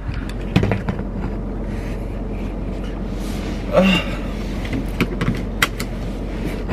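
Steady hum and hiss inside a car's cabin, with a few light clicks and knocks as things are handled and a brief vocal sound about four seconds in.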